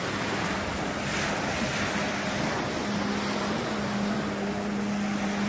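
Surf washing on a sandy beach, with a steady low engine drone over it that steps up a little in pitch about three seconds in.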